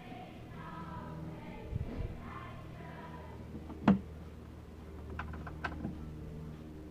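Background music with singing and held notes. A single sharp knock about four seconds in, then a few lighter clicks.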